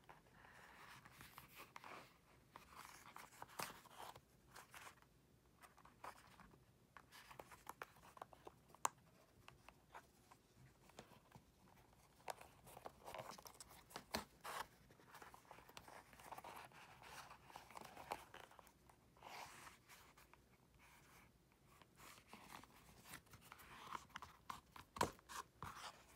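Faint, intermittent rasping and rustling of leather being hand-stitched: a needle pushed through pre-punched holes and waxed thread drawn through and pulled snug, with scattered light clicks of handling.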